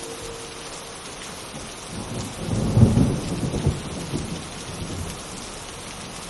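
Steady rain with a low rumble of thunder that swells about two and a half seconds in, peaks, and rolls away over the next second or so. The last of a synthesized train-horn chord dies away in the first second.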